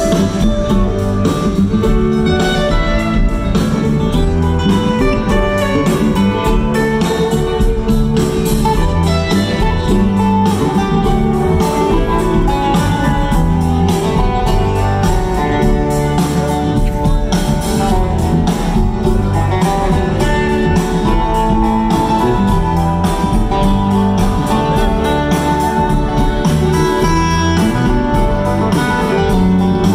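Live string band playing an instrumental jam with a steady drum beat: acoustic guitar, banjo, mandolin and fiddle over bass and drums, recorded on a phone from the audience.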